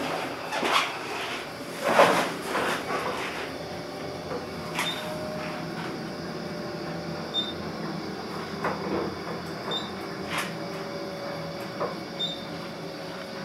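A traction elevator car in motion: a few loud knocks and rustles in the first seconds, then a steady running hum with a faint whine. Short high beeps sound about every two and a half seconds.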